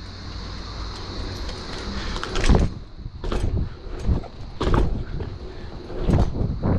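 BMX bike rolling on concrete, its tyres giving a steady rushing noise, with about four sharp knocks and rattles from the bike as it rides over the channel's bumps and banked walls.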